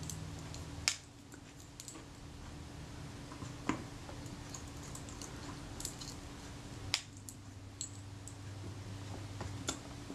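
Faint scratching and a few sharp little clicks as brittle old adhesive is picked off a camera's metal body plate by hand.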